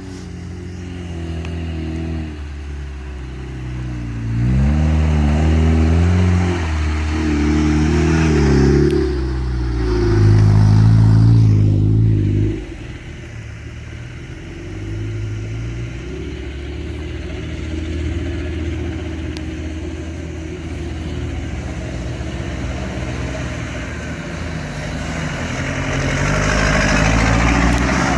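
Off-road 4x4 engines running, one revved up and down several times before falling away sharply about twelve seconds in, leaving a steadier engine sound that grows louder again near the end.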